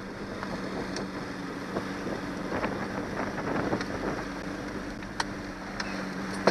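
Johnson 90 hp V4 two-stroke outboard running at a steady drone through choppy water, with wind buffeting the microphone and a few sharp knocks as the hull meets the waves.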